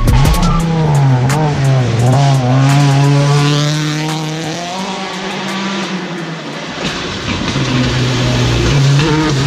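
Rally car engine revving hard on a gravel stage, its pitch rising and falling with throttle and gear changes.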